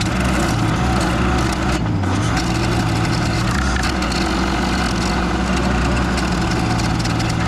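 Case TL100 mini skid steer running hard while its Toro stump grinder attachment cuts into a wood stump: a steady engine drone under the grinding and splintering of wood.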